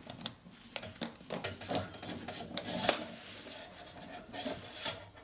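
Steel mainspring of a Victor phonograph motor scraping and clicking against the metal spring barrel as its end is worked in and hooked onto the rivet inside. The sharp clicks and scrapes are irregular, with the loudest click about three seconds in.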